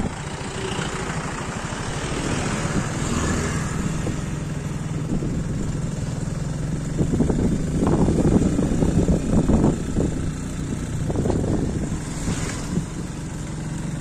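Two-wheeler engine running steadily while riding along a road, with wind rumbling on the microphone in the second half.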